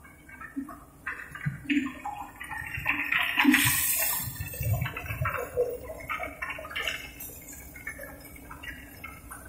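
Drum-type chicken plucker spinning wet, scalded chickens against its rubber fingers, with water churning and splashing in an uneven, rushing sound. It is loudest about three to four seconds in, then eases.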